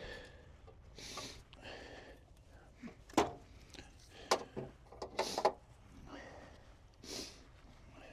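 A few light knocks and clicks of tools and parts being handled in an engine bay, between short breaths.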